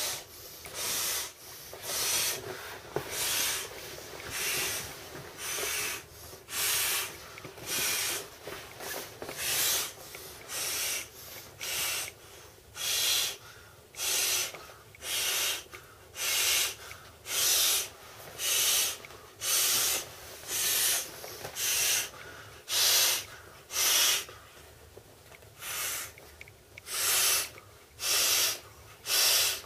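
Inflating a vinyl swim ring by mouth: short, hissing breaths blown into its valve, about one a second, with quieter gaps between as breath is drawn in.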